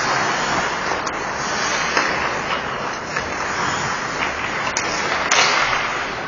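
Ice hockey game on the rink: a steady hiss of skates scraping the ice, with a few faint clicks of sticks or the puck.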